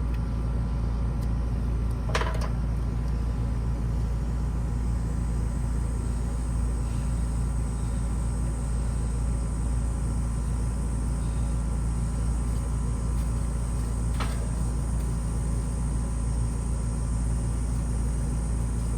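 Steady hum and drone of a neighbouring air-conditioning condenser unit running, its compressor and outdoor fan going, which the technician hears as struggling to move air through the top. Two brief clicks or taps sound about two seconds in and again about fourteen seconds in.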